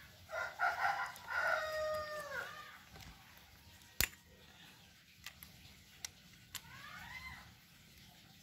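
A rooster crowing once, a call of about two and a half seconds that falls away at the end, followed by a shorter, fainter call near the end. A single sharp click comes about halfway.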